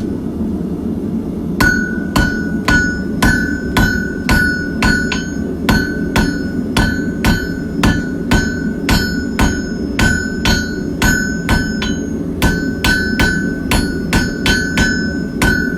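Hand hammer striking hot steel from an old coil spring on an anvil: a steady run of ringing blows, about two to three a second, starting a second or so in, with a brief pause about three-quarters of the way through. A steady low rumble runs underneath.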